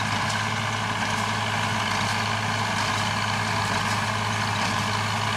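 Farm tractor's diesel engine running at a steady, constant speed: an even low hum over mechanical noise, with a few faint ticks.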